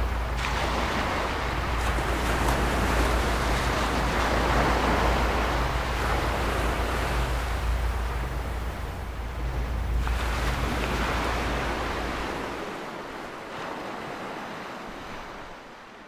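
Soundtrack sound design: a rushing noise that swells and ebbs over a low steady hum with a faint pulsing beat. The hum stops about three-quarters of the way through, and the rushing fades away near the end.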